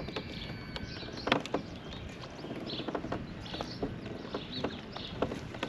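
Small birds chirping repeatedly over a low, steady outdoor background, with a couple of sharp knocks about a second in.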